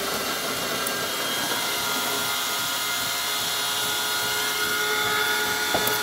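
Built-in coffee grinder of a De'Longhi Magnifica S espresso machine grinding beans, its motor running steadily and getting a little louder near the end. The hopper is probably a little low on beans.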